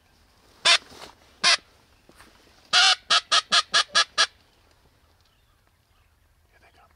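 Duck call blown close by in mallard hen quacks: two single quacks, then a longer quack and a quick run of six shorter ones, a greeting call to bring ducks in.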